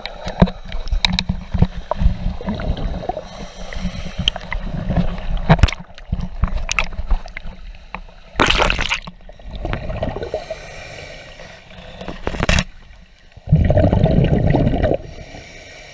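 Water moving around a submerged camera as it is swept through lake water: irregular muffled knocks and bumps with gurgling and sloshing. About eight seconds in comes a short burst of splashing noise, and near the end a louder rumbling stretch as the camera passes through dense underwater weeds.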